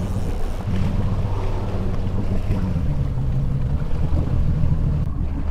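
Boat's outboard motor running at a steady idle, a low hum, with wind buffeting the microphone.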